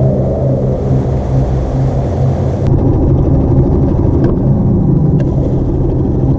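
An engine running at a steady speed with a low, even hum.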